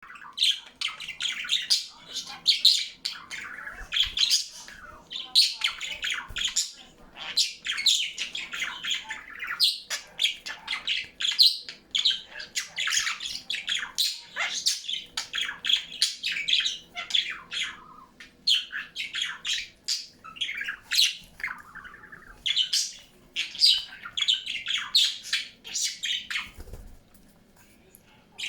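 A pet bird calling nonstop, a rapid, busy run of short high calls and chirps with hardly a pause, stopping shortly before the end.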